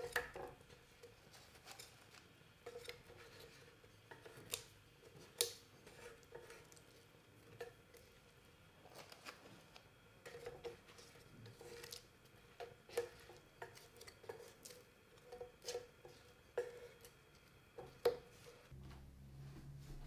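Chopsticks clicking and tapping against a frying pan as slices of Spam are picked up and turned in the sauce, in scattered sharp clicks a second or few apart.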